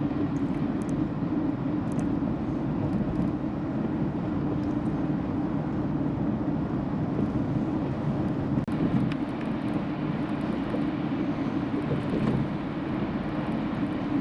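Steady road and engine noise of a car driving at speed.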